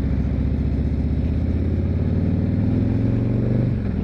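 Harley-Davidson Street Glide's Milwaukee-Eight V-twin engine running under way, its pitch rising slowly through the second half and then dropping near the end.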